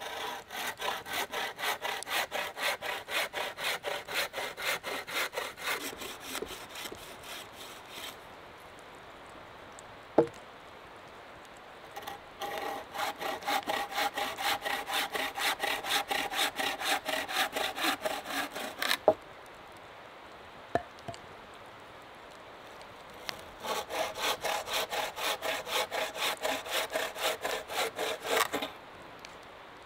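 A hand saw cutting through wood in three bouts of quick back-and-forth strokes, about three strokes a second, with short pauses between them. A few sharp knocks fall in the pauses, the loudest one right as the second bout ends.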